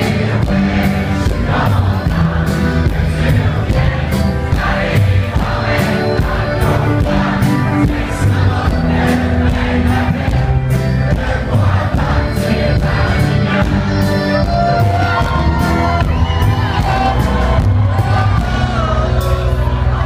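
Live band music: a man singing into a microphone over accordion and acoustic guitar with a steady beat, the audience joining in.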